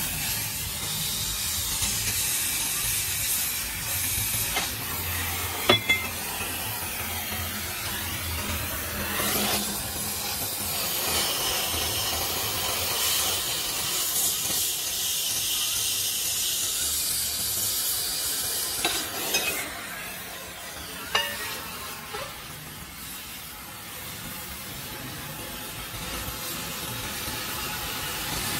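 Oxy-fuel cutting torch hissing steadily as it cuts through a steel truck chassis rail, with a few sharp clicks along the way. The hiss weakens a little after about twenty seconds.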